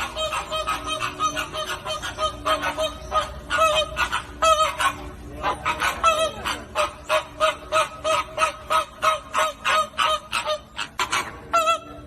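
A flock of flamingos honking: many short, goose-like calls overlapping, several a second.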